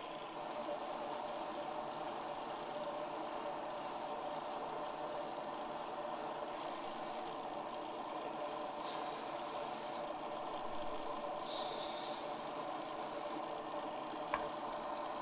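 Airbrush spraying candy paint in hissing bursts: one long burst of about seven seconds, then two shorter ones. Under them runs the steady hum of the spray booth's fan.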